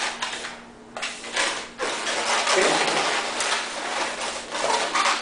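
Latex modelling balloons squeaking and rubbing against each other and against the hands as they are twisted and bent into shape. A near-continuous run of rubbery squeaks and scrapes follows a short lull about a second in.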